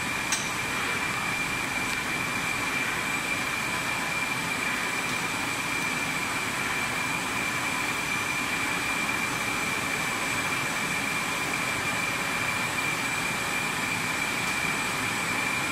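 Steady running noise of a plastic-sheet extrusion production line for PP honeycomb board, with a constant high-pitched whine over the machinery hum. One short click comes just after the start.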